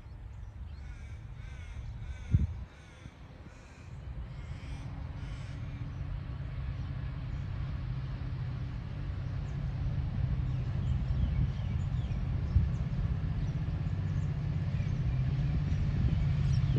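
A crow caws about eight times in a steady run over the first five seconds. Under it, the low rumble of an approaching diesel freight train grows steadily louder. There is a single sharp thump about two seconds in.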